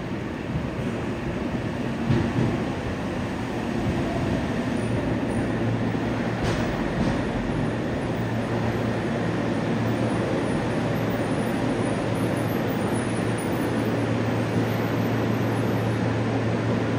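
Yokohama Municipal Subway 3000R-series train with Mitsubishi IGBT-VVVF drive pulling into an underground station and braking to a stop. A steady running noise of wheels and motors, with a low hum that sets in about five seconds in.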